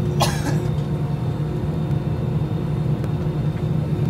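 Airliner cabin noise: a steady engine drone with a low, even hum.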